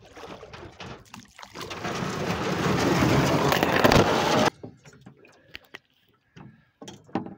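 A canoe hull scraping and grinding over a shallow river bottom. A loud rough noise builds over about three seconds and then stops abruptly, followed by a few scattered knocks against the hull.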